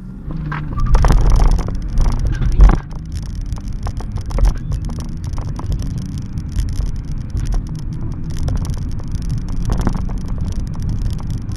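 BMW E46 330d's three-litre straight-six turbodiesel accelerating hard from a standing start, heard from inside the car with heavy wind and road noise. Loudest in the first three seconds, then a steadier pull.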